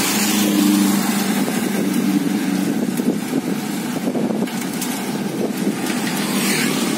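Steady road and traffic noise heard from a moving pedal becak (cycle rickshaw), with a low engine hum for about the first second.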